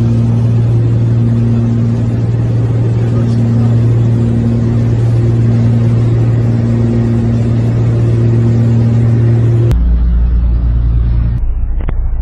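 Propeller-driven light aircraft's engine and propeller droning steadily in cruise, heard from inside the cockpit, with a throbbing overtone over the hum. About ten seconds in the drone changes abruptly to a lower, duller one.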